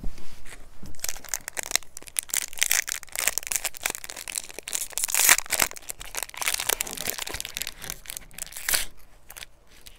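Foil wrapper of a Pokémon Vivid Voltage booster pack crinkling and crackling in the hands as it is handled and opened, easing off near the end.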